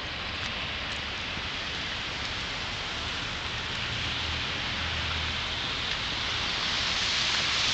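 Steady hiss of blizzard wind and blowing snow, with a low rumble underneath, growing slightly louder toward the end.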